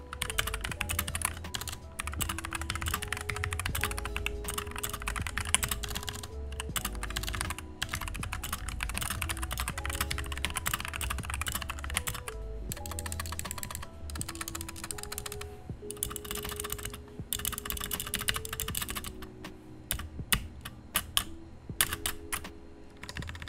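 Fast typing on a Royal Kludge RK71 mechanical keyboard with tactile Outemu Brown switches, foamed and unlubed: a dense run of keystroke clacks that thins to scattered strokes near the end. Background music with steady notes plays underneath.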